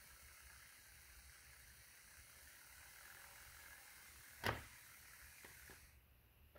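Faint steady whir of a small 12-volt DC motor turning 3D-printed plastic planetary gears, stopping near the end. A sharp plastic clack about four and a half seconds in, followed by a couple of lighter taps, as the printed parts are handled.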